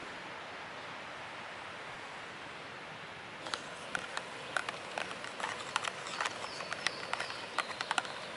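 Light metal utensil clicks and taps against camp cookware, starting about three and a half seconds in and going on irregularly, several a second, over a steady hiss.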